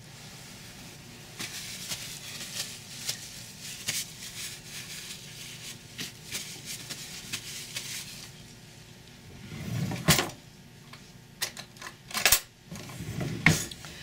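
A spoon scraping and tapping against a container of soap batter: about six seconds of quick scraping clicks, then a few louder separate knocks and thuds near the end.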